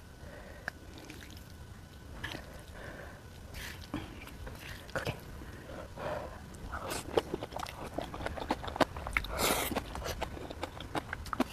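Close-miked eating of jjajang ramen and green onion kimchi: wet chewing with many small clicks and crackles that grow busier and louder in the second half, with a brief louder rush of noise about nine seconds in.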